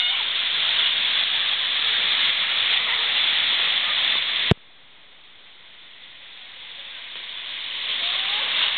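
Steady rushing hiss of river water pouring over a low weir. About halfway through a sharp click cuts it off, and the rush then fades slowly back up over the next few seconds.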